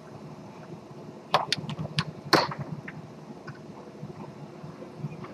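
Sharp clacks of a foosball game on a Tornado table: the hard ball struck by the men on the rods and knocking about the table, a quick cluster of hits starting about a second and a half in, then a few fainter ones.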